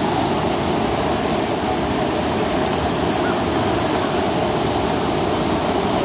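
Rushing white water of a rocky cascade pouring over boulders close by: a loud, steady, unbroken hiss of falling and churning water.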